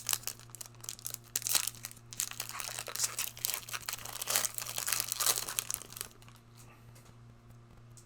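Foil trading-card pack wrappers crinkling and rustling as cards are opened and handled, a rapid crackling that dies away about six seconds in, leaving a faint low steady hum.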